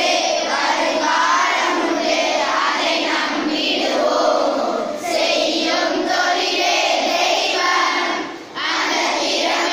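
A class of children singing a Tamil verse together in chorus, reading the words from their sheets. There is a short break for breath about eight and a half seconds in, then the singing resumes.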